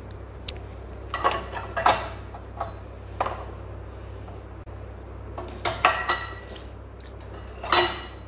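Dishes and cutlery clinking as they are handled in a dishwasher rack: several sharp clinks with a short ring, the loudest near the end.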